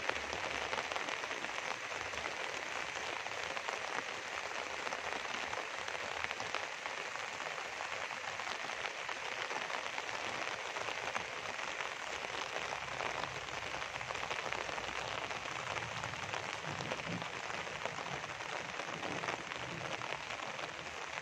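Steady rain falling on leafy plants and open ground, an even hiss without letup.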